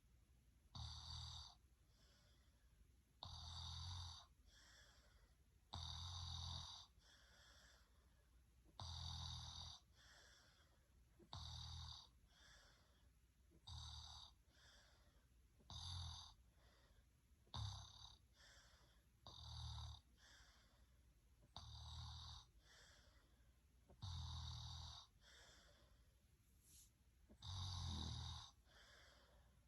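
A person snoring in a steady rhythm, about one snore every two to two and a half seconds, each a low drone with a hissy edge, with a softer breath between snores. The rhythm breaks once with a longer pause near the end.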